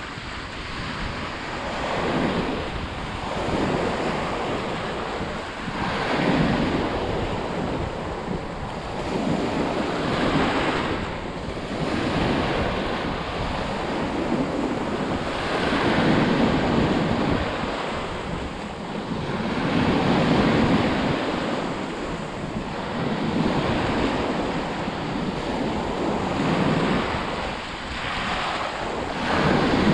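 Sea waves washing onto a shore, the surf surging and easing every few seconds, with wind rumbling on the microphone.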